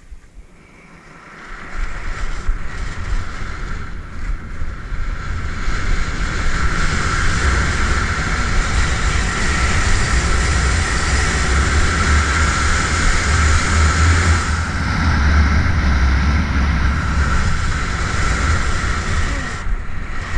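Wind rushing over the camera's microphone with the skis hissing and scraping through hard, chopped off-piste snow during a fast descent. The rush builds about a second and a half in and dies away near the end as the run stops.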